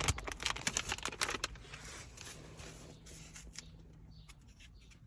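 Adhesive tape being peeled and pulled off a new car infotainment screen's packaging: crackly rustling and quick clicks, strongest in the first second and a half, then fading to faint handling sounds.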